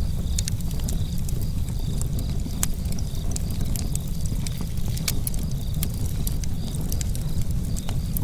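Campfire burning, with irregular sharp crackles and pops from the burning wood over a steady low rumble.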